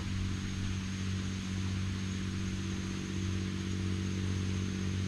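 A steady low motor hum with a faint, thin high whine above it.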